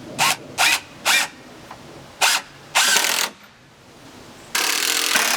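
Cordless impact driver driving screws into pressure-treated wood. It runs in several short bursts in the first three seconds, then a longer steady run for about the last second.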